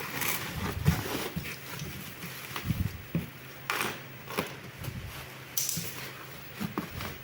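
Irregular rustling, taps and knocks of things being handled, with a few sharper knocks spread through.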